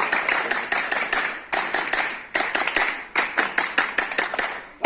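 A group clapping in unison in a rhythmic pattern: runs of quick claps, about seven a second, broken by short pauses roughly every second.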